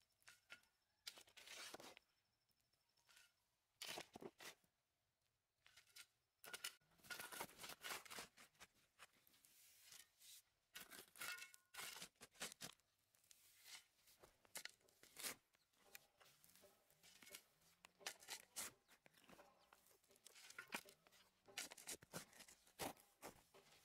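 Faint, irregular scraping and crunching of a hand hoe's metal blade chopping into loose, stony dry soil and dragging it, with crumbs and clods falling.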